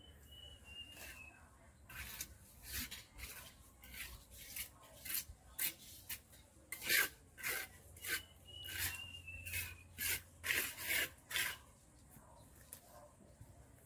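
Leaves and shoots being picked and stripped by hand from a leafy shrub: a run of short rustling, crackling strokes, about one or two a second, loudest in the middle of the stretch.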